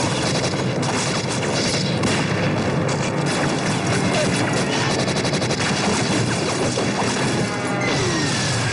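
Film battle soundtrack: dense gunfire and explosions with a quick burst of automatic fire about three seconds in, over a dramatic music score.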